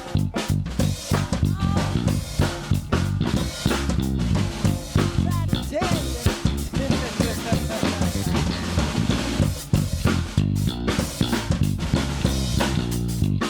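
A live rock band playing an instrumental passage without vocals: a drum kit keeping a steady beat under guitar and bass guitar, with a few bent guitar notes about halfway through.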